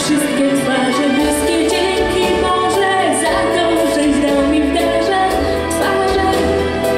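A woman singing solo into a microphone with instrumental accompaniment; low bass notes come in about a second in.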